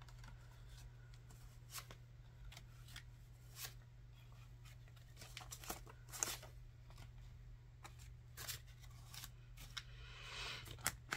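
Faint rustling and crinkling of paper banknotes being handled and shuffled in the hands, scattered soft crackles over a steady low hum.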